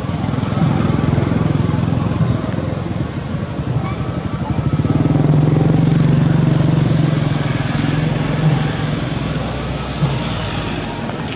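A motor vehicle engine running steadily, growing louder around the middle and easing off toward the end.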